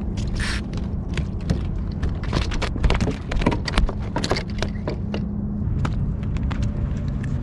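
A small, undersized California halibut flapping and slapping against a kayak deck and being grabbed by hand, giving a run of quick irregular knocks and clicks over a steady low rumble.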